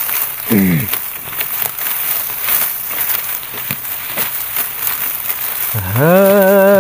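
Dry grass crackling and rustling as handfuls are gripped and cut with a sickle (khurpa). Near the end a man's voice slides up into a long held sung note.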